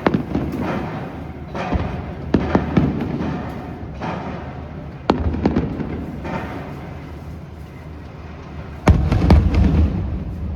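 Fireworks bursting overhead: a string of irregular bangs, each followed by a fading crackle, with the loudest cluster of booms about nine seconds in.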